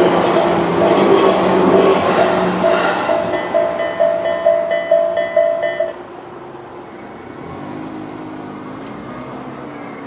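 A Tobu 10030-series electric train rumbles past over the rails, fading away over the first few seconds, while the level crossing's electronic warning bell (Tobu 'sound A') rings in a steady repeating pattern. The bell cuts off suddenly about six seconds in, the signal that the train has cleared and the barriers are rising. Then a car engine revs up as the car pulls away over the crossing.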